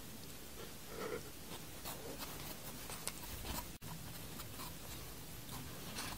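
Faint eating sounds: wooden chopsticks scraping and stirring sauced instant noodles in a paper cup, with scattered small clicks. A brief gap just under four seconds in.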